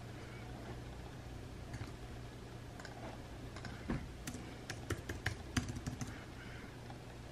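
Typing on a computer keyboard: a few scattered key clicks, then a quicker run of clicks in the second half, over a low steady hum.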